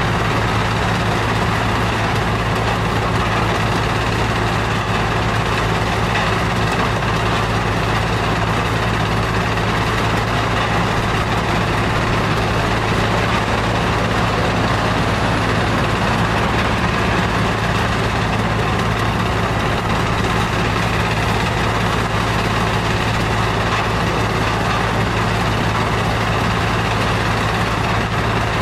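Stone crusher plant machinery running steadily, a dense even mechanical noise over a constant low hum.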